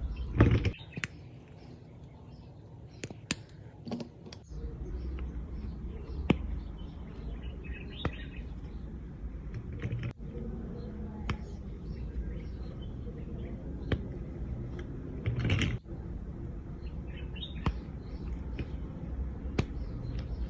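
Wax candles being broken by hand: scattered sharp snaps and cracks, with a louder crunching break right at the start and another about three quarters of the way through.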